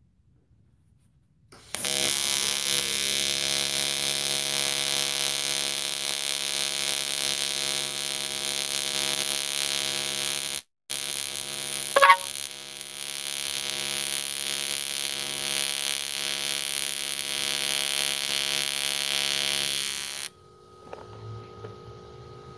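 AC TIG welding arc from a Miller Dynasty 210 on aluminum pipe: a steady, even buzz that starts about two seconds in, cuts out for a moment about halfway with one sharp crackle just after, and stops near the end, leaving a faint hum.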